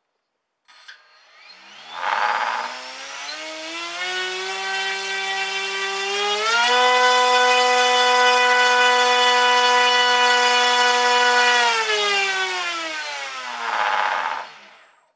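A 3536-size 1500 kV brushless motor spinning a propeller on a thrust test rig. It spools up to a steady part-throttle whine, steps up sharply to full throttle about six seconds in and holds there for about five seconds, then winds down and stops near the end. A brief rough rush of noise comes as it passes through low speed on the way up and again on the way down.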